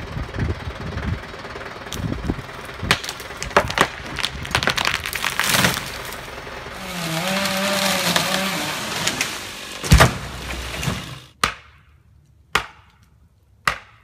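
A felled tree coming down: a run of wood cracks and snapping branches, a rush of limbs and foliage through the air, then a heavy crash onto the ground about ten seconds in. After the crash it falls quiet except for three sharp knocks.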